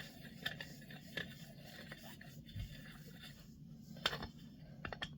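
Faint scraping and a few light clicks of a brass miner's lamp's parts being twisted together by hand, the glass still shifting in its seat.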